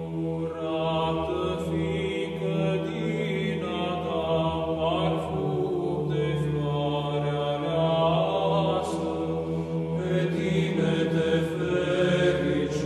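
Background music: a chanted melody sung over a steady held low drone.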